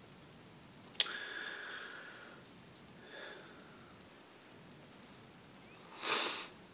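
A single clink, like a hard object striking glass or metal, about a second in; it rings with several tones that fade over about a second, and a fainter ringing clink follows. Near the end comes a short, loud, breathy hiss lasting about half a second, which is the loudest sound.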